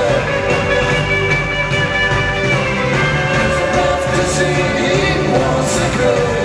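Live band playing rock music, loud and continuous, with held notes.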